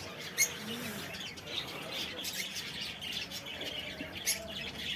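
Lovebirds chirping: many short, high chirps scattered irregularly.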